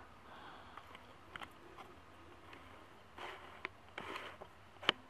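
Faint handling of a Lego minifigure and its small plastic accessories, with a few scattered little plastic clicks and a short rustle or two. The sharpest click comes near the end.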